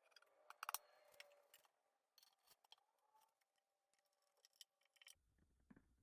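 Near silence, with faint scattered clicks and ticks; the loudest is a short cluster of clicks just under a second in.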